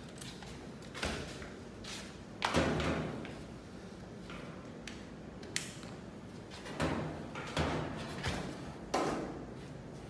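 Handling noises: about six separate knocks and clatters of tools and parts against the appliance's sheet-metal back and the floor, with a sharp click near the middle. The loudest knock comes about two and a half seconds in.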